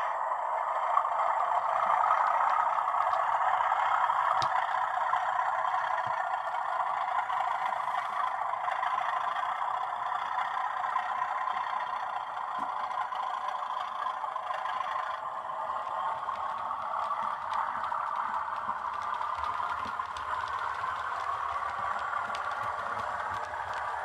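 Hornby Class 37 model locomotive running on its track, its twin-track-sound decoder playing a Class 37 diesel engine sound through the model's small speaker, with light rattling of wheels on the rails. It gradually gets quieter after the first few seconds.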